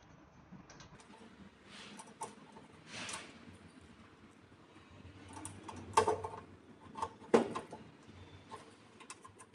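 Gloved hands handling a PV cable and pushing it through a plastic cable gland into a solar combiner box's input port: soft rustling with scattered small clicks and knocks, two of them louder a little past the middle.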